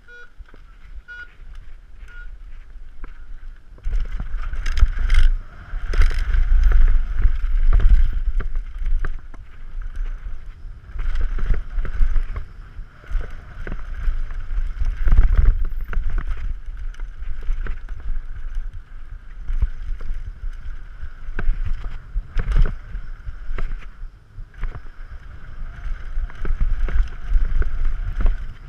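A start-gate countdown timer beeping about once a second, then a Yeti SB6c full-suspension mountain bike ridden fast down a dirt jump trail: tyres on hardpack, rushing wind on the microphone, and sharp knocks and rattles from landings and rough ground, loudest in several stretches.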